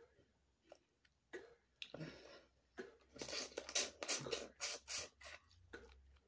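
Boiled crawfish shells cracking and tearing as they are peeled by hand. A few scattered snaps give way to a quick run of crackling about three seconds in, lasting two seconds or so.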